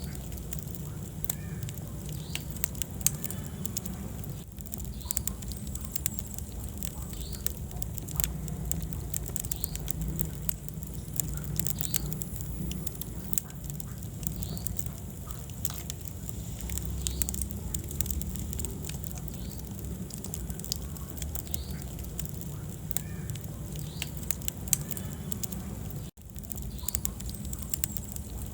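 Wood fire burning in a fireplace: a steady low rumble of flames with frequent sharp crackles and pops. The sound cuts out for a split second near the end.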